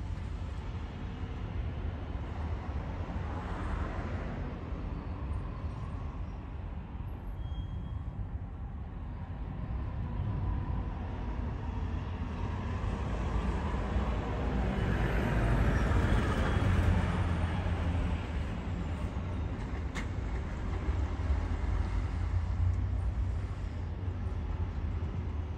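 Outdoor ambience of wind buffeting the microphone, with road traffic passing. One vehicle swells up and fades away, loudest about two-thirds of the way through.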